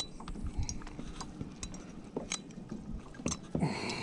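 A few small clicks and knocks from a caught pike being handled in a plastic kayak, with a short rushing hiss near the end.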